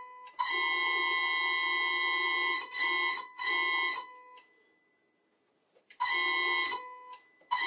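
A high-pitched electrical whine, like a steady beep, from the lathe's 1 hp motor energized by a variable frequency drive. It cuts out and back in several times, with a pause of over a second midway, as the worn start/stop switch fails to make steady contact.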